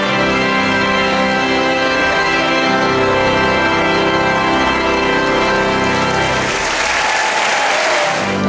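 Organ music playing long, held chords. Applause breaks out about six and a half seconds in and runs over the last notes.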